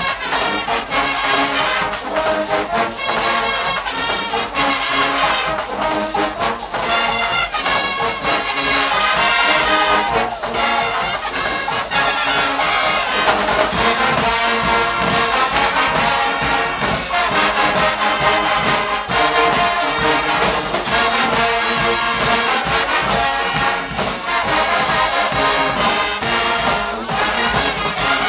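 Guggenmusik carnival band playing loud, dense brass music, trumpets and trombones over a steady drum beat.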